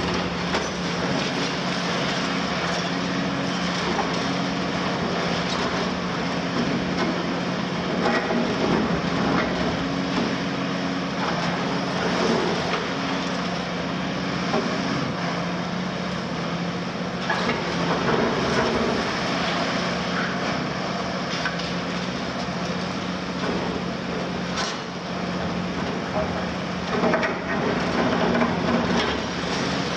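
Cat 352F demolition excavator's Cat C13 diesel engine running steadily under load, with scattered cracks and knocks of concrete being broken by the demolition attachment.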